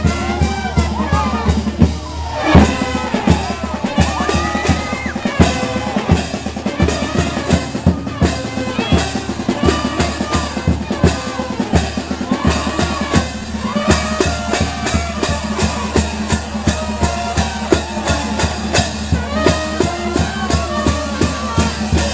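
Lively band music with a fast, steady drum beat of bass drum and snare, and a melody line wandering above it.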